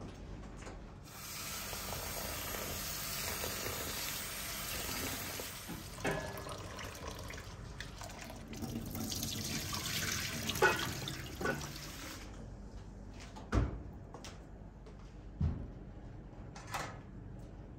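Kitchen tap running into a stainless-steel sink for about ten seconds, then cut off suddenly. A few sharp clinks and knocks of kitchenware follow.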